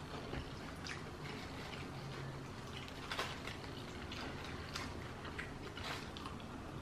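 A person eating a chicken wing: faint wet mouth sounds, lip smacks and chewing, with a few soft clicks scattered through, over a steady low hum.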